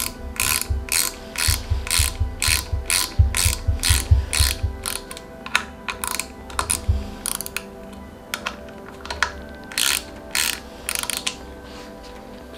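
A hand ratchet wrench worked back and forth: a burst of ratchet clicks about twice a second for the first five seconds, then a few scattered strokes.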